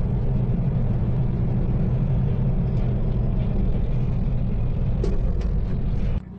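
Steady low rumble of a vehicle driving at highway speed, heard from a dashcam inside the vehicle, with a few faint clicks about five seconds in. The rumble cuts off suddenly just before the end.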